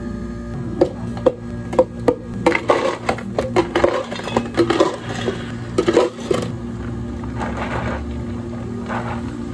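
Ice cubes scooped and clattering into plastic cups, many sharp clinks in quick succession that stop a little past the middle, over a steady low hum.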